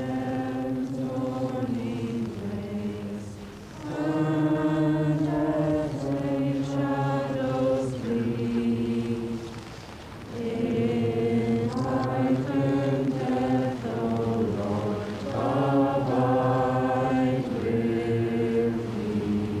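A choir singing slowly in long held phrases, with short breaks between them.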